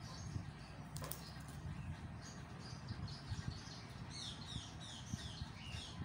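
Alexandrine parakeet giving a quick run of about six faint, short, high chirps, each falling in pitch, starting about four seconds in, over faint low rustling.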